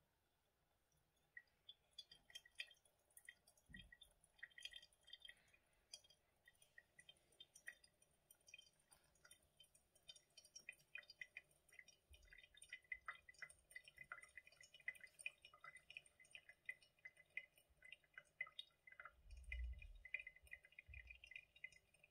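Faint pour-over coffee brewing: a run of small, irregular drips and trickles as hot water from a gooseneck kettle wets the grounds in a paper filter and drips through. The drips start after a moment of quiet and grow denser partway through, and there is a soft low bump near the end.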